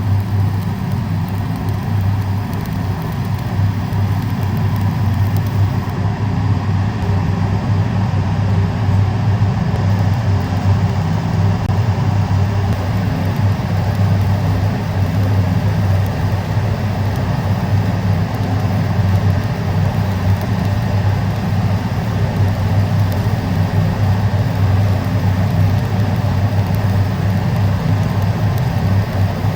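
Welding equipment running continuously: a steady low electrical hum with a constant hiss over it, unchanging throughout.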